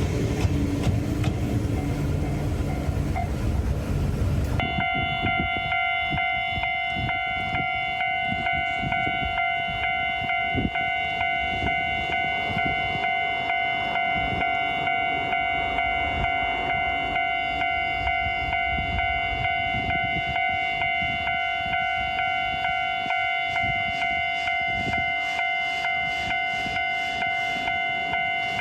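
A loud rumble of a passing vehicle abruptly gives way, about four and a half seconds in, to a Japanese level-crossing warning bell. The bell rings on in a steady, evenly repeated 'kan-kan' clang at one fixed pitch.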